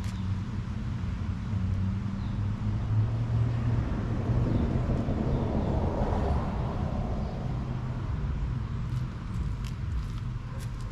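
A motor vehicle's engine running with a steady low hum, while a broad rush of noise swells and fades around the middle.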